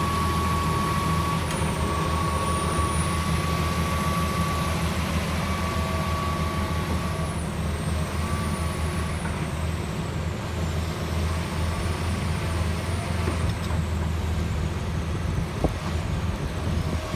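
John Deere 350G excavator's diesel engine running steadily under work, with a thin whine that comes and goes in the first half.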